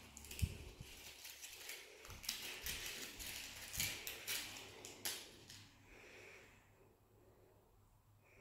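Fluted paper sweet case crinkling and rustling as it is picked off a chocolate ball, a run of small crackles that dies away after about five seconds.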